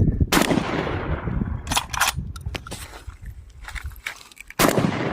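Gunshots: a loud shot with a fading echo, a few sharper cracks about two seconds in, then another loud shot near the end.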